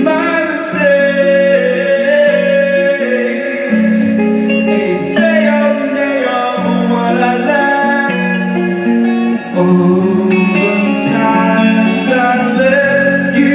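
Live band music led by guitar, with sustained chords and notes changing every second or so.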